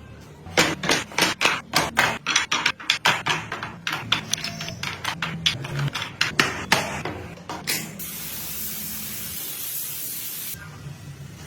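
Quick series of sharp knocks, about four a second, like light hammering on wood, for about six seconds; then a steady hiss lasting about two and a half seconds.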